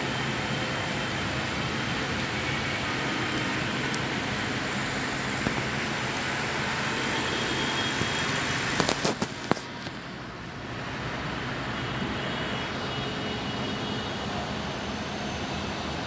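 Steady rushing background noise, with a quick cluster of sharp clicks about nine seconds in, after which the noise dips briefly and comes back.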